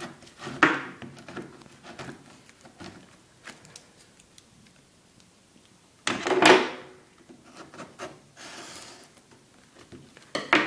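Packaging of a boxed keyboard being handled: rubbing and light knocks on the box, with one louder scrape about six seconds in.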